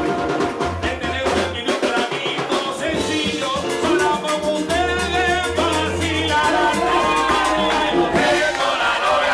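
Live Puerto Rican plena music: a man sings the lead into a microphone over the band's driving percussion.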